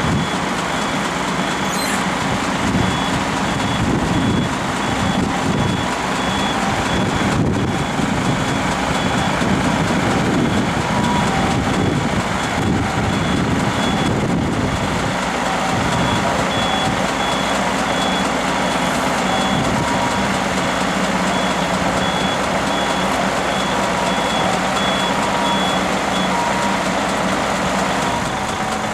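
Heavy diesel engine running with a reversing alarm beeping repeatedly in a steady series of high beeps, which stops near the end.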